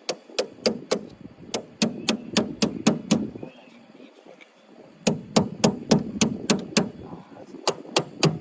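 Battery cable terminal being hammered onto a battery post with a pair of vise grips: sharp metal strikes at about four a second, in several runs broken by short pauses, the longest pause a little past the middle.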